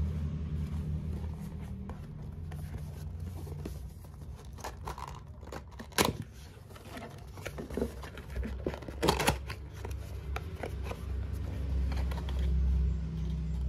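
Cardboard face-mask box being torn open by hand: paper tearing and crinkling, with two sharp rips about six seconds in and again about three seconds later, over a steady low rumble.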